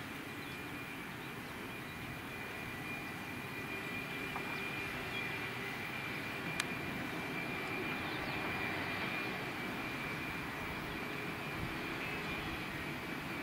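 Jet engines of a Boeing 757 running as the airliner rolls along the runway after landing: a steady rumble with a thin high whine over it, slowly growing louder.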